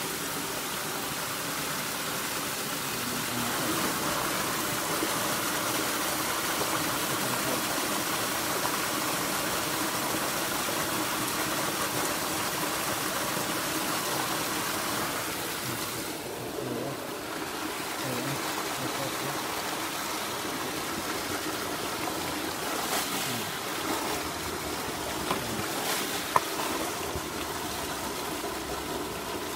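River water flowing steadily with an even rushing noise, with a couple of brief clicks near the end.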